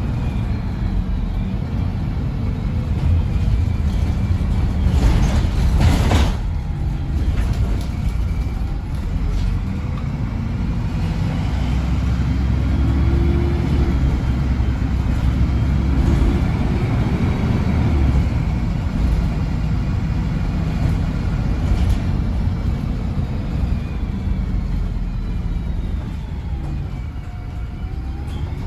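MAN 18.240 bus's diesel engine and drivetrain running under way, heard from on board, with a heavy rumble and whines that rise and fall in pitch as it changes speed. A short loud burst of noise comes about five seconds in.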